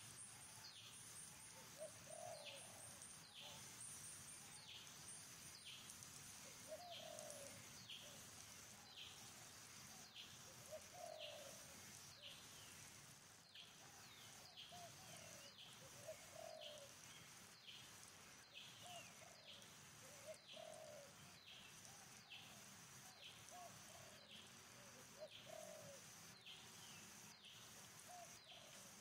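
Faint wild birdsong: one bird repeats a short, high, falling note about once a second, over low cooing calls that come every second or two, with a steady high hiss behind them.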